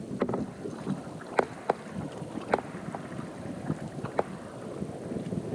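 Water lapping against a boat's hull, with about five short, sharp slaps or knocks scattered through it.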